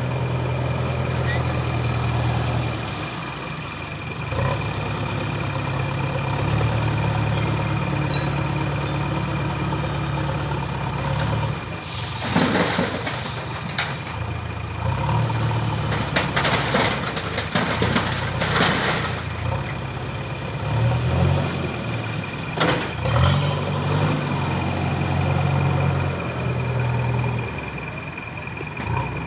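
Diesel engine of a JCB 3DX backhoe loader running at working load, its pitch and level rising and easing in stretches. Several short rushing, hissing noises come in the middle part.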